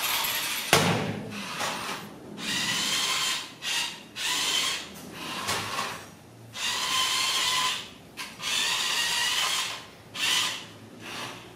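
Toy remote-control car's small electric motor whirring in repeated bursts of about a second each, its whine wavering, with a sharp knock near the start.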